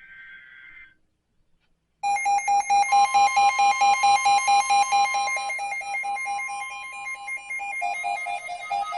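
Weather radio emergency alert going off: loud rapid beeping, about five beeps a second, with a steady warning alarm tone joining about a second after it starts, after a short faint data-burst screech at the very start. It signals an incoming warning alert.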